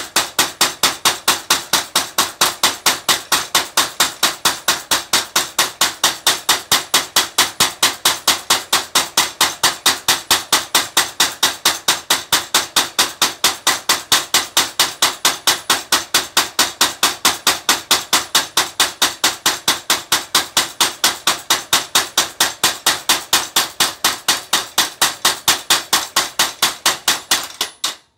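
Simple motor-driven spring power hammer striking hot iron in a fast, even rhythm of sharp metal-on-metal blows, about four to five a second. The blows stop abruptly near the end.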